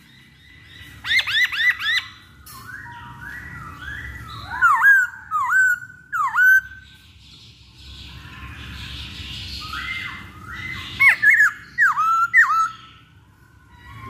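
Black-throated laughingthrush (Poksay Hongkong) singing: bursts of loud, rich whistles that swoop up and down, with a softer, scratchy stretch around the middle.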